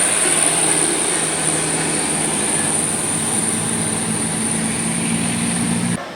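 A bus engine running steadily, with a thin high whine held above it; the sound cuts off abruptly near the end.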